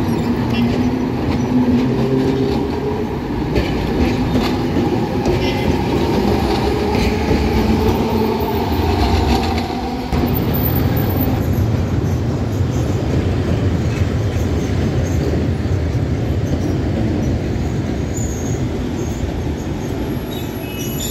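Alexandria Raml line electric trams running past on street track. A droning motor tone rises and falls with wheel and rolling noise, and for several seconds in the first half the wheels click over rail joints. After a cut about halfway through, the tram noise turns into a steadier rumble.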